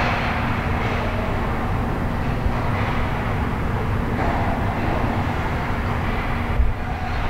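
Ice rink ambience during hockey play: a steady low rumble and hum, with a hiss of skates and sticks on the ice that rises and falls.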